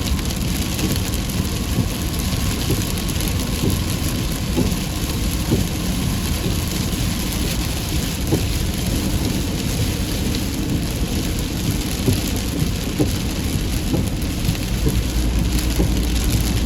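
Heavy rain falling steadily, with a continuous low rumble underneath and scattered individual drops ticking sharply.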